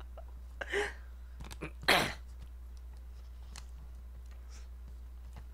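A man's breathy exhale as his laughter trails off about a second in, then one short, sharp breath or sniff at about two seconds. After that, faint clicks of wooden chopsticks against a foil ramen pouch.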